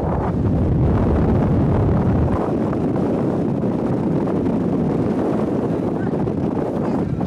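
Wind buffeting the camcorder microphone over the rumble of a steel roller coaster train running along its track, the low rumble easing about two seconds in.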